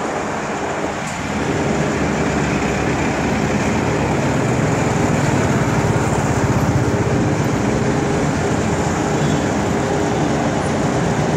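Road traffic, with the engines of a bus and other vehicles running close by; it gets louder about a second in and then holds steady.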